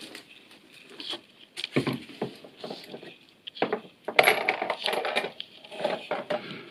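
Small metal parts and tools clinking and clattering on a workbench in several short spells, busiest about four seconds in.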